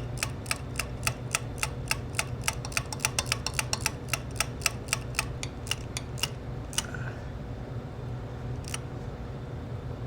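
Hand ratchet clicking rapidly, about five clicks a second, as bolts are run down tight. The clicking stops about six seconds in, leaving a few single clicks.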